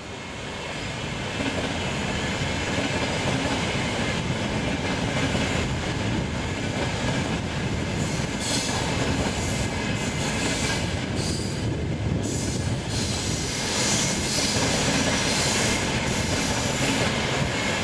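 FS ETR 450 Pendolino electric tilting train passing close by, its wheels running on the rails with a steady rumble that builds over the first couple of seconds. A higher hiss comes and goes in the second half as the cars go by.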